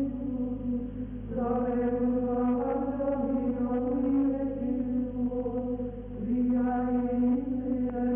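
Background music of voices singing a slow chant-like melody in long held notes, with short pauses between phrases, over a steady low hum.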